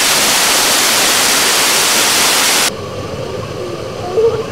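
Waterfall close to the microphone: a loud, even roar of falling water that cuts off suddenly about two and a half seconds in, giving way to a quieter rush of water with a short higher sound near the end.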